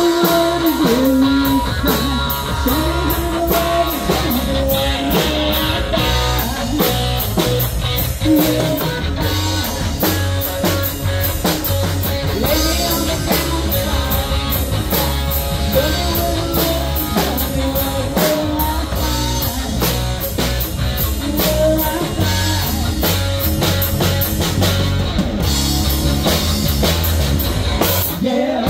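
Live rock band playing: a sunburst Les Paul-style electric guitar plays bending lead lines over electric bass and a drum kit keeping a steady beat with regular cymbal strikes. A woman sings lead vocals into the microphone.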